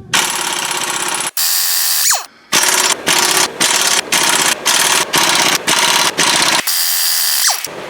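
Pneumatic impact wrench working on the exhaust fasteners. It runs in two long bursts, then a string of short blips about two a second, then another long burst near the end, the air motor whining down between bursts.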